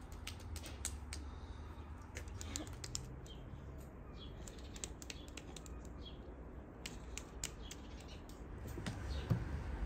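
Quick, irregular light taps and pats of hands and fingers touching during a children's hand-clapping game, with a few faint bird chirps in the background.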